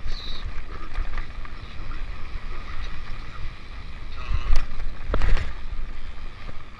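Wind rumbling on the microphone, with a couple of sharp knocks about four and a half and five seconds in, the second the loudest.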